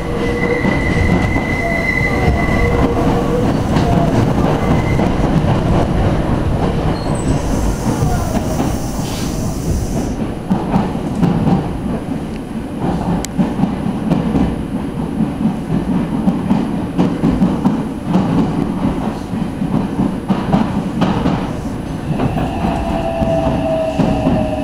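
Meitetsu Komaki Line electric train heard from inside the car while running: steady rumble of wheels on rail with clatter over the track. A steady motor whine fades about three seconds in, and there is a brief hiss about eight seconds in. Near the end a whine from the traction motors comes in and slowly falls in pitch as the train slows for Komaki station.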